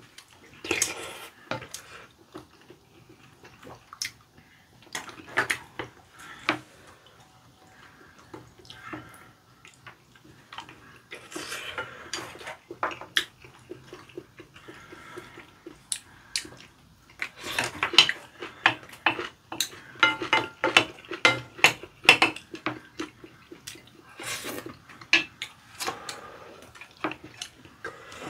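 Wooden spoons and chopsticks clinking and scraping against ceramic bowls while eating: many sharp clicks, sparse at first and busiest in the second half, some leaving a brief ring from the bowl.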